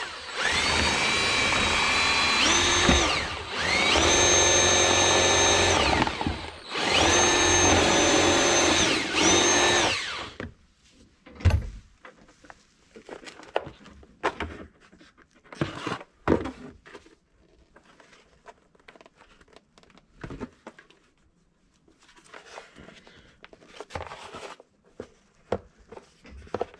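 Power drill running in three bursts over about ten seconds, spinning up at the start and slowing briefly between bursts, as it bores the drive-shaft hole through the bottom of a boat hull. After that come only a few light knocks and handling sounds.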